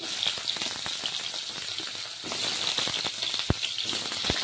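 Squash and potato pieces going into hot oil in a kadai and sizzling. The sizzle starts suddenly, with scattered clicks and a few louder knocks against the pan.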